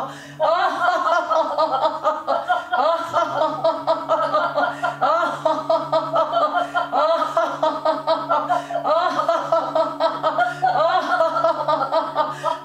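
A woman laughing on and on in quick, rhythmic ha-ha pulses, the deliberate, voluntary laughter of a laughter-yoga exercise, over a steady low drone.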